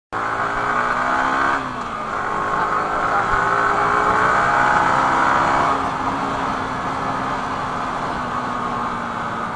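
Yamaha R15 V3's single-cylinder engine accelerating hard under way. The revs drop sharply at an upshift about a second and a half in, climb steadily for about four seconds, then fall a little past halfway and hold at a steady cruise.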